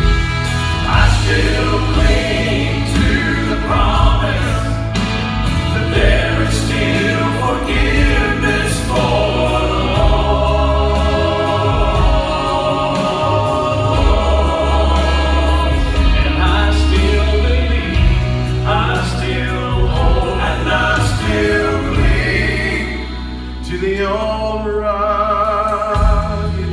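Gospel vocal quartet singing in harmony over an instrumental accompaniment with a steady bass line and beat.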